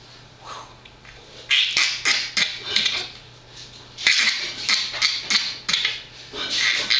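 A small boy's playful cough-talking: runs of quick, breathy fake coughs and splutters. They come about a second and a half in, again about four seconds in, and near the end.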